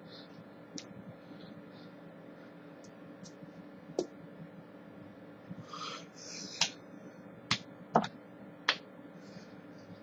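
Hands clapping and slapping together in sign language, a handful of sharp smacks mostly in the second half, over a faint steady hum.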